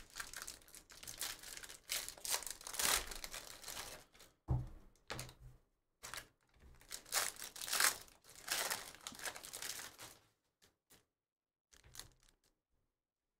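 Foil wrapper of a trading-card pack being torn open and crinkled by hand, in crackling spells for about ten seconds. Near the end come a few light taps as a stack of cards is handled and set down.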